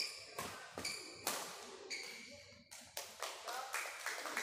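Badminton rally: sharp smacks of rackets striking the shuttlecock, about two a second, each with a short ringing ping from the strings, echoing around the hall.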